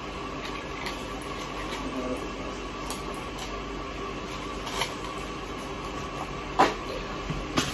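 Cardboard medication boxes and blister packs being handled: a few short sharp clicks and crinkles, the loudest about six and a half seconds in, over a steady room hum with a faint high tone.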